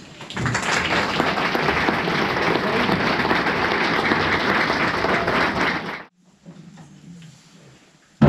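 Audience applauding after a piece of music, a dense steady clapping that stops abruptly about six seconds in.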